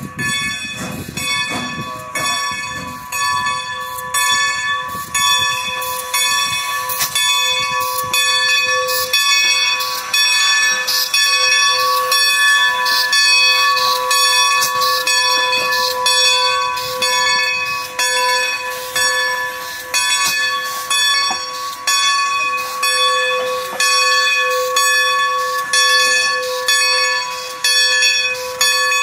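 Steam locomotive bell, on ex-Great Western #90, a 2-10-0 steam engine, ringing steadily about once a second as the engine rolls slowly by. Low rumbling of the locomotive sits under the bell in the first few seconds.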